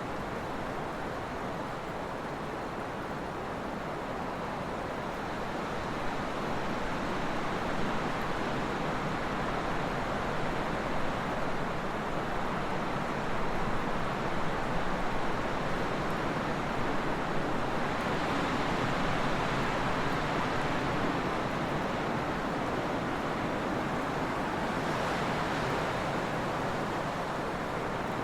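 Trade winds blowing in a steady rush that swells stronger in gusts through the middle and latter part.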